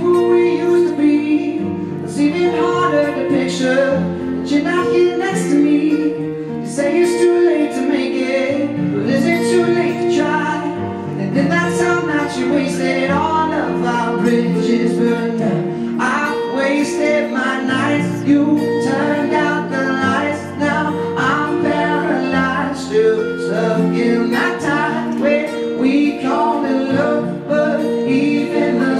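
Live acoustic band performance: acoustic guitar strumming with a sung vocal line over it.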